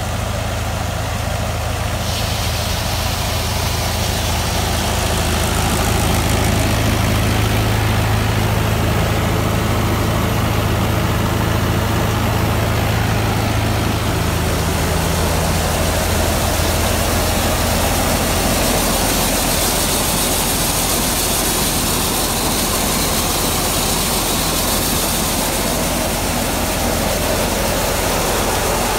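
Mahindra 475 DI tractor's four-cylinder diesel engine running steadily, driving a thresher through its PTO, with the thresher's machinery running. About halfway through, the engine's low steady hum gives way to a broader, noisier rush of the threshing machine.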